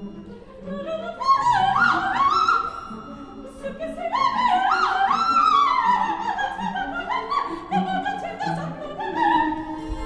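Coloratura soprano singing quick, leaping runs in French over an orchestra, in a live opera performance. The vocal line rises and falls rapidly through the high register, with a short break about halfway through.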